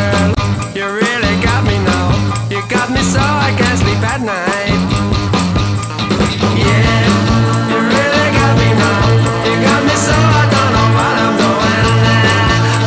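Background music: a rock song with a repeating bass line.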